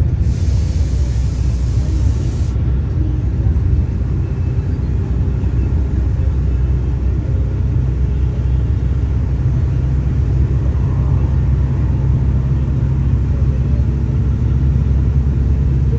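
Diesel engine of a Volare V9L minibus on an Agrale chassis, heard from inside the cabin: a steady low drone while cruising. There is a brief hiss in the first couple of seconds.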